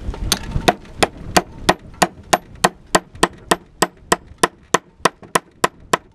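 Hammer driving a steel chisel into a stone to split off flakes: a steady run of sharp strikes, about three a second.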